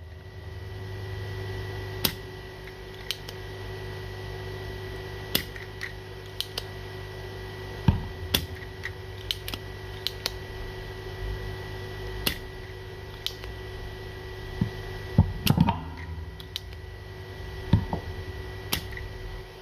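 Scattered sharp clicks and taps of small hand tools working on a laptop motherboard during soldering, over a steady electrical hum and a faint high whine.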